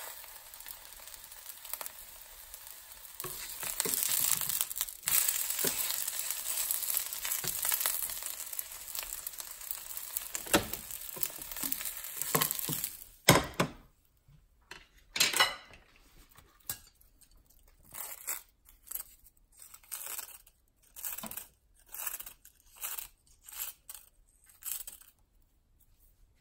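A fried egg sizzling in oil in a nonstick frying pan, a plastic spatula scraping under it. About halfway through, the sizzling stops after a sharp knock. A string of short crinkling, crushing sounds follows as dried seaweed (gim) is crumbled by hand over the egg.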